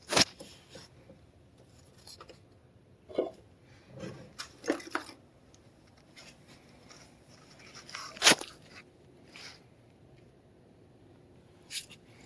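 A few scattered sharp clicks and knocks against a quiet background. The loudest come right at the start and about eight seconds in, with smaller ones about three to five seconds in and near the end.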